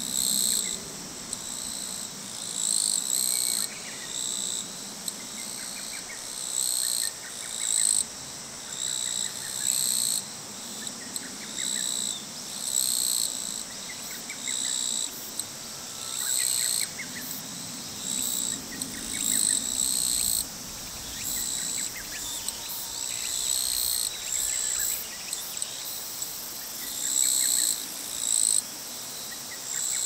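Summer insects calling in loud, shrill pulses, one about every one and a half seconds, with fainter chirping between them.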